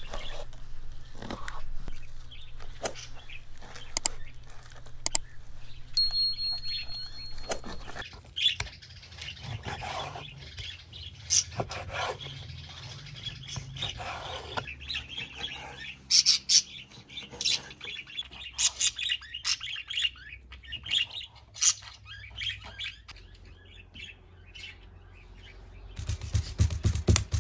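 Kitchen knife cutting raw lamb on a wooden cutting board, with scattered sharp taps of the blade against the board. Small birds chirp in the background.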